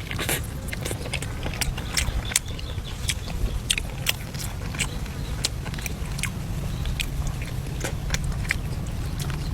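A person biting and chewing food, making many irregular crisp clicks and crunches over a steady low rumble.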